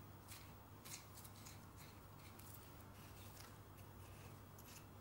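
Near silence: faint clicks and rustles of a butcher's knife cutting along the seam between muscles of a boneless beef silverside, over a low steady hum.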